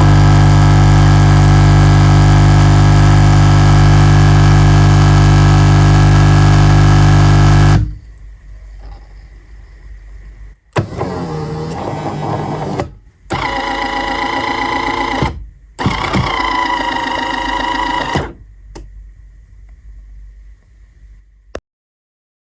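Bean-to-cup coffee machine's built-in grinder running with a loud, steady hum, stopping abruptly about eight seconds in. After a quieter pause, the machine runs again in three shorter bursts of about two seconds each.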